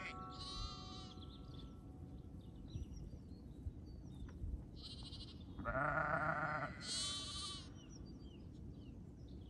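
Sheep and lambs bleating in a few separate wavering calls: a high one about half a second in, a louder, deeper bleat around six seconds, and another high call right after it.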